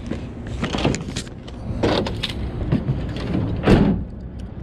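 Fishing gear handled and set down in a pickup truck bed: rustling and several knocks, with one loud thump about three and a half seconds in. A low steady rumble runs underneath.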